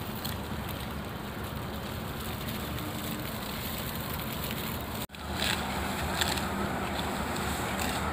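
Wind buffeting the microphone in an open wheat field, a steady rumbling noise. It drops out for an instant about five seconds in, and a few short sharp sounds come through after that.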